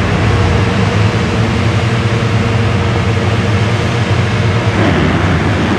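A full starting gate of motocross bikes running their engines together, a loud dense drone of many engines held revving. About five seconds in the sound shifts as the field launches off the gate.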